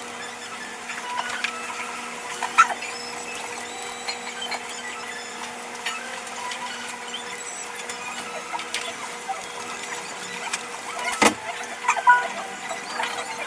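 Work sounds sped up five times: a rapid scatter of small clicks, knocks and short squeaks over a steady hum, with the loudest knocks about two and a half seconds in and again near the end.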